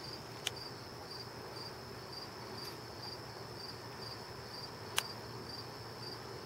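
Crickets chirping steadily, a high-pitched pulsing trill at about two chirps a second. Two sharp clicks break in, about half a second in and again near five seconds.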